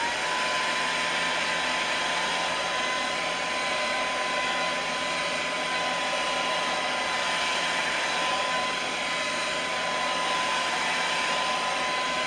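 Hair dryer blowing steadily with a constant whine, drying freshly airbrushed iridescent gold paint on a crankbait.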